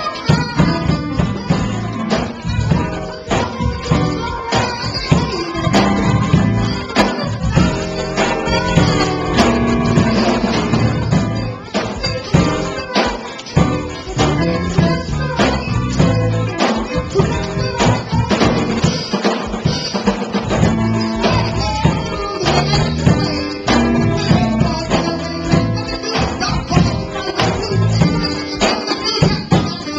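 Live band playing an instrumental groove: a drum kit keeping a steady beat with busy cymbals, with electric guitar and keyboard, amplified in a small room.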